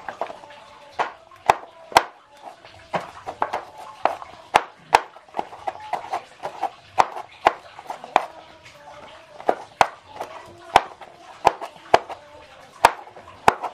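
Knife chopping beans on a cutting board: sharp, irregular knocks about two a second.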